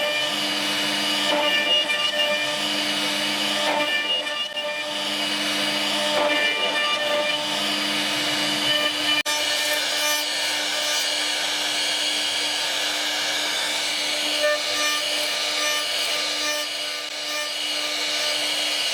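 CNC router cutting wood: the spindle runs with a steady whine over the rasping of the bit through the wood, with a momentary break about nine seconds in.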